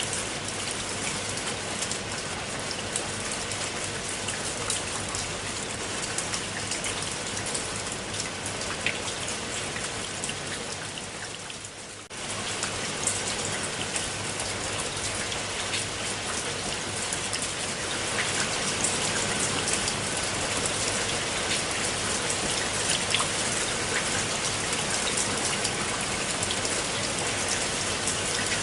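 Steady rain falling on a pool of standing water: a dense patter of many small drop splashes. About twelve seconds in it fades briefly, then cuts straight back in, a little louder after that.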